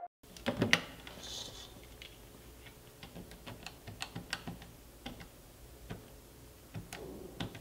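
Corded push-button landline phone handled: the handset clatters off its cradle about half a second in, then the keypad buttons are pressed in a run of light, irregular plastic clicks as a number is dialed.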